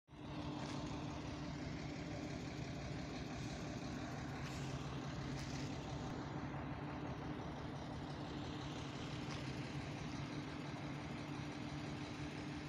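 Steady low mechanical hum at a constant pitch, like an engine idling, over general street noise.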